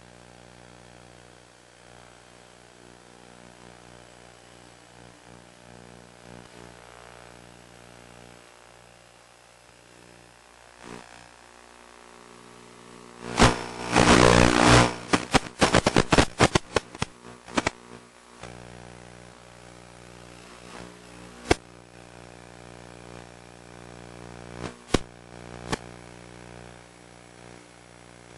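Steady multi-tone whine of a quadcopter drone's propellers and motors. About halfway through comes a few seconds of loud, dense clicking and crackling, then a few single sharp clicks.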